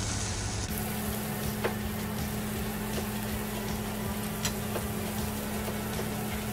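Onion and spice paste (masala) sizzling in hot oil in a frying pan as it fries down, with a steady low hum underneath and a few faint ticks.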